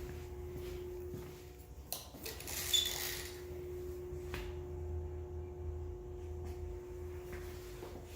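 Steady low machine hum with a steady higher drone, broken by a few sharp clicks and a brief scraping, squeaking noise about two and a half seconds in.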